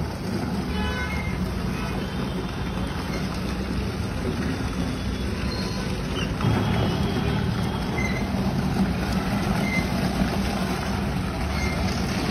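A steady low rumble, like an engine or motor running, without a break.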